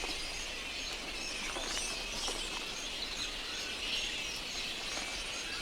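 Little red flying fox colony calling: a steady chorus of many small, high chirps and squeaks.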